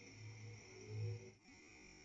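Crickets and other night insects chirring steadily, faint, with two short low hums about a quarter of a second and one second in, the second louder.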